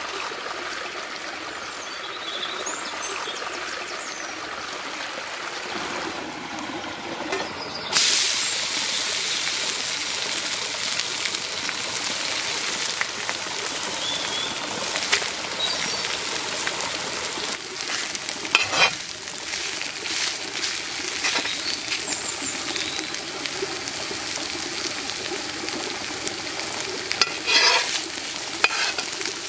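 Fat melting on a flat metal pan over charcoal with a low sizzle, then about eight seconds in beef steak goes onto the hot pan and a loud, steady frying sizzle starts. A metal spatula scrapes and clinks against the pan a few times, most near the end.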